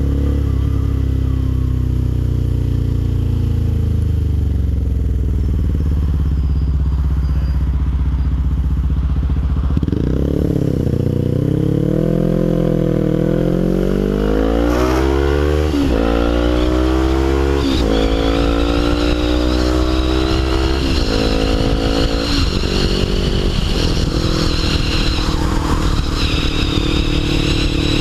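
Suzuki GS500's air-cooled parallel-twin engine through a Delkevic 200mm aftermarket silencer, loud. It idles steadily for about ten seconds, then is revved, the pitch climbing in several runs each cut by a sudden drop, before holding a steadier, higher drone near the end.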